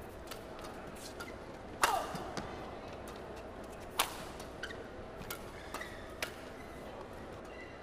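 Badminton rally: rackets striking a shuttlecock, a sharp crack every second or so, the loudest about two seconds in and another strong one about four seconds in, over the steady hum of a quiet hall.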